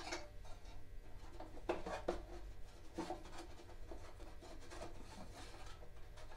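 Light rubbing and a few small clicks as the ignition switch wiring and its plug are worked by hand through a small hole in a Snapper mower's steel front frame, with a sharper click at the very start.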